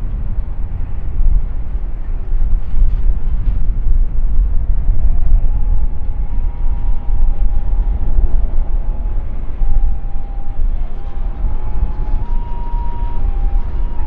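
Boeing 737-800's CFM56-7B jet engines on final approach: a loud, steady low rumble with a whine that steps up and down in pitch.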